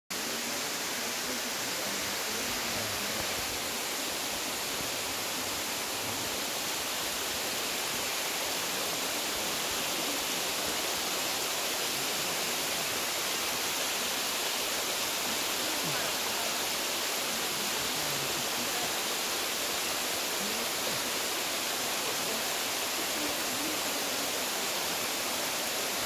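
Waterfall: water streaming down a moss-covered rock face, a steady even rush with no breaks.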